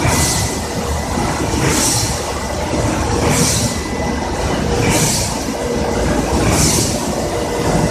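Industrial continuous fryer running: a steady mechanical rumble from its mesh-belt conveyor and exhaust fans, with a hiss that swells about every one and a half seconds.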